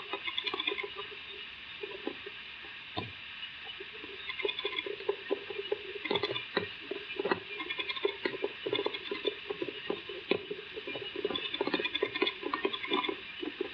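Phillips screw being driven with a screwdriver through a plastic body panel into a threaded hole: a dense run of small irregular clicks and scrapes that comes in several spells.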